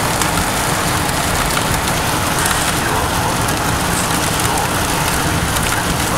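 Rain pattering on a moving car, over steady road and wind rumble.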